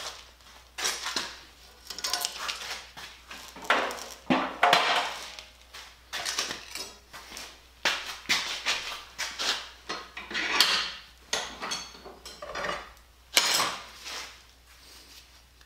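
Irregular clanks, knocks and rattles of steel as a flat steel wheel rim and hand tools are handled and set down on a steel welding table and bench vise.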